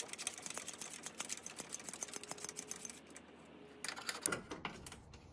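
Small socket ratchet clicking rapidly, about ten clicks a second, as a 10 mm bolt on the automatic gearbox's oil pan is worked loose. The clicking stops about three seconds in, with a few more clicks a second later.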